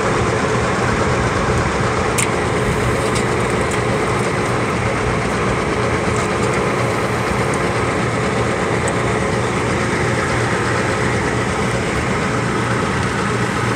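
Steady drone of a running motor or engine, with a low hum that holds level and never changes.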